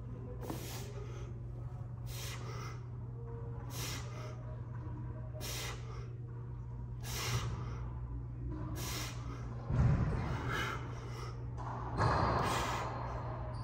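A man breathing hard in short, sharp breaths, about one a second, with the exertion of a seated dumbbell Arnold press; two breaths about ten and twelve seconds in are louder. A steady low hum runs underneath.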